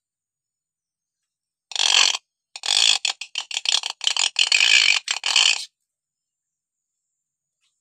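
Hill myna calling: one short harsh call about two seconds in, then a run of quick harsh chattering calls lasting about three seconds, stopping abruptly.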